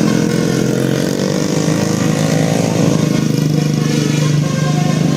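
A road vehicle's engine running close by, loud and steady, its pitch bending up and back down between about one and three seconds in as it passes or changes speed.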